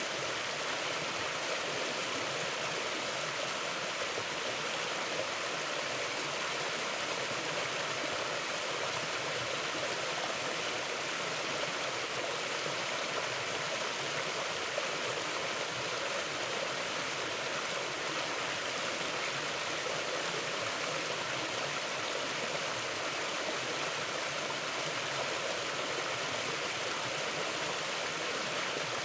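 Mountain river flowing, a steady, even rush of water with no change in strength.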